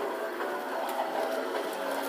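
Toy Christmas train running on its track: a steady mechanical whir from its small motor and wheels, with a few light ticks.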